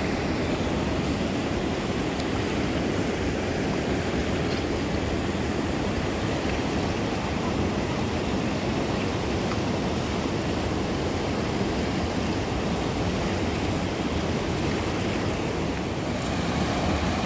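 Fast river water rushing steadily.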